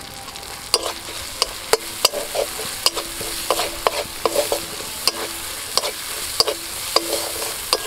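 Flat metal spatula scraping against an aluminium karai, about twice a second, over the sizzle of onion, ginger-garlic paste and ground spices frying in oil. The masala is being cooked down with a little water.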